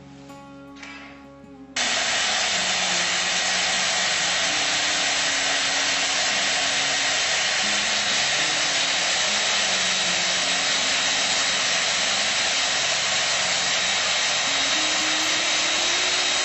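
Quiet guitar music, then about two seconds in a loud, steady rushing noise starts suddenly and keeps on evenly, like a blower or a hair dryer, with the music still faintly under it.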